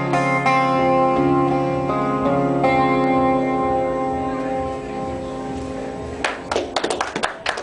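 Acoustic guitar strumming the last few chords of a song, the final chord left ringing and slowly fading. About six seconds in, scattered clapping from a small audience begins.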